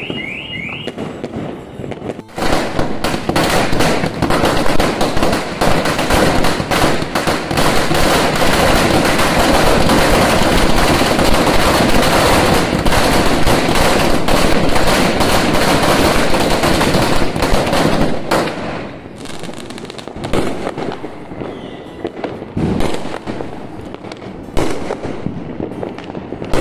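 Firecrackers going off on the ground in a rapid, continuous crackle for about fifteen seconds, then thinning to scattered separate bangs. A car alarm's repeating rising chirp sounds briefly at the very start.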